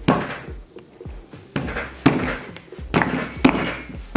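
Non-tipping stainless steel wine tumbler with Coke inside being knocked again and again on a wooden counter. There are about six sharp thunks with a short metallic ring, some half a second apart, as the suction base keeps it standing.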